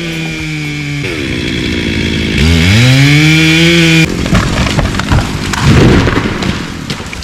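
Chainsaw revving up and held at high speed, dropping back about a second in, then revved hard again until it cuts off abruptly about four seconds in. Irregular crackling and thumps follow.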